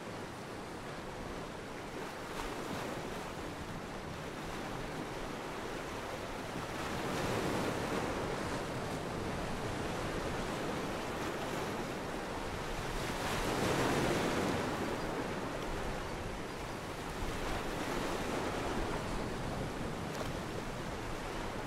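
Ocean surf breaking and washing up the beach, with wind; it comes in slow surges, loudest about fourteen seconds in.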